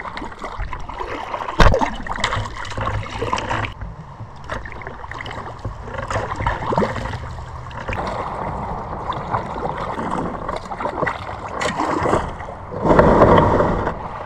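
Paddle strokes and water gurgling and splashing around a Trak skin-on-frame kayak, with a sharp knock about a second and a half in. Near the end comes a louder rush of noise as the bow runs up onto the gravel landing.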